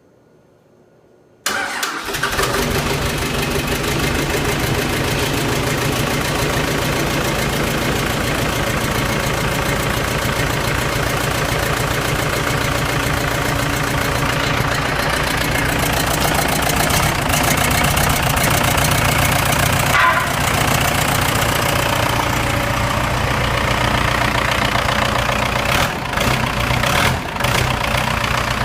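A Cummins 4BT four-cylinder diesel in a Case 1840 skid steer starts abruptly about a second and a half in and then runs steadily. This is the rebuilt engine's first start.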